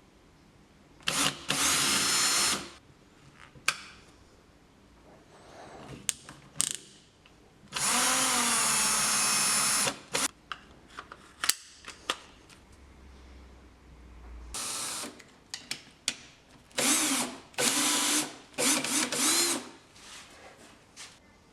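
Cordless drill run in several short bursts of the trigger, the longest about two seconds, its motor pitch rising and falling as it speeds up and slows. Short clicks of handling come between the bursts.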